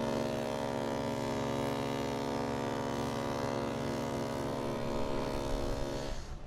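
Queen Mary 2's ship's horn sounding one long, steady blast of several deep notes at once, which cuts off abruptly about six seconds in.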